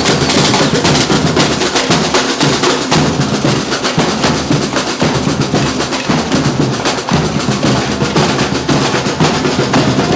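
Street drum band playing: a dense, fast, continuous rhythm of snare drums and bass drums with rolls.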